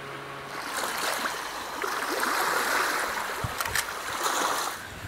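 A wave washing in on the shore, a rushing hiss that swells about a second in and dies away near the end, with a few faint ticks partway through.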